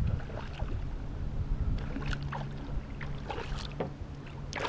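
Wind buffeting the microphone, with small splashes and light knocks of water and gear around a plastic kayak.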